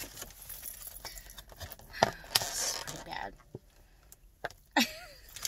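Scattered soft clicks and light rustling from food and takeout packaging being handled, with two sharper clicks about two seconds in. A brief murmured 'mm' comes near the end.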